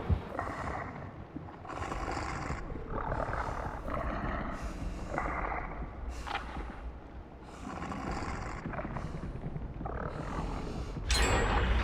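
Snoring: a run of rough, noisy breaths in and out, one every second or so, with a louder breath just before the end.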